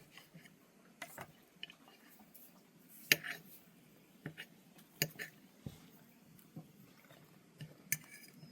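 Scattered light clinks and taps of cutlery and dishes, a handful of separate strikes with the sharpest about three seconds in.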